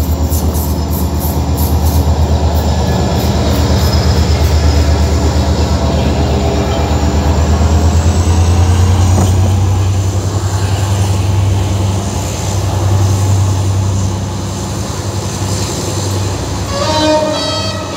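Egyptian National Railways diesel locomotive passing close with a steady, heavy low engine drone, followed by its passenger coaches rolling by. A train horn starts sounding near the end.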